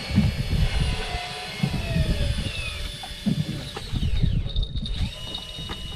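Wind buffeting the microphone in uneven gusts over open water, with faint whining tones that glide up and down.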